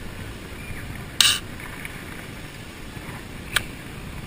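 Aluminium drink can being opened by its ring-pull: a short, loud hiss-like burst about a second in, then a sharp metallic click near the end.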